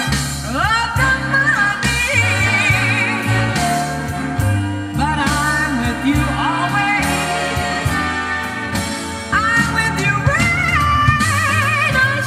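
A pop song with a singer playing from a cassette in a 2005 Mazda3 factory tape deck, heard through the car's speakers. Dolby noise reduction is on, with no dulling of the treble.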